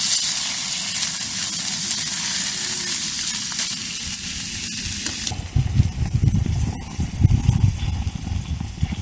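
Burgers sizzling as they fry, a steady hiss that cuts off abruptly about five seconds in. Gusty low rumbling of wind on the microphone follows.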